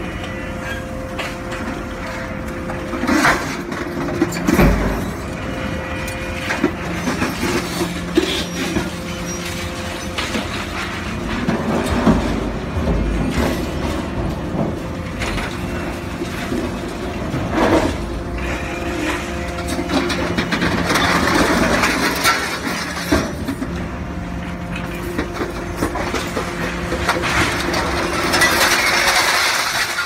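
Hydraulic scrap-handling machinery (excavator with a grapple and a scrap-metal container shear) running with a steady hum, broken by loud clanks and crashes as scrap metal is dropped into the shear's hopper. It is joined by long stretches of scraping, crunching metal, about two-thirds of the way through and near the end.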